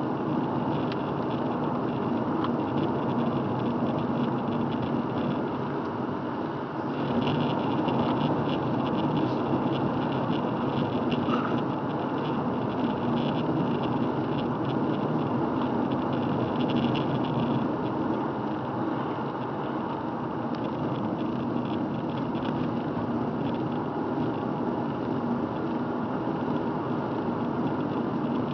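Car driving on a wet road, heard from inside the cabin: steady engine and tyre noise. A higher crackling hiss joins about seven seconds in and fades out about eleven seconds later.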